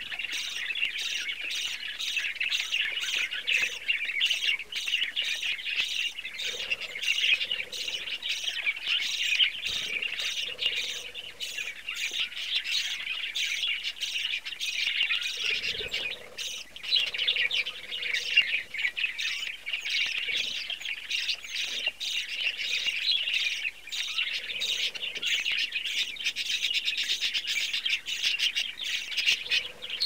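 Budgerigars chattering: a dense, continuous stream of quick, high chirps that runs without a break.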